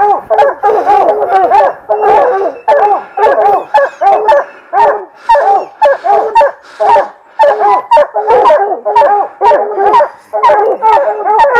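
Hounds barking treed at a mountain lion up a pine: a loud, steady run of deep barks, about two a second with hardly a pause, the calls of more than one dog overlapping. This barking at the tree is the sign that the dogs have the cat treed.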